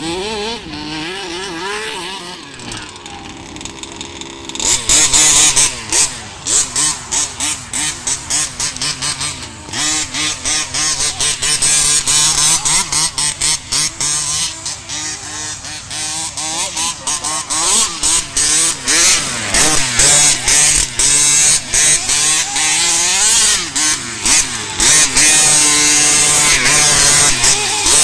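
Small 26 cc two-stroke engine of a 1:5 scale gas RC buggy, running steadily at first and then, from about five seconds in, revved in many quick bursts on and off the throttle, its pitch rising and falling.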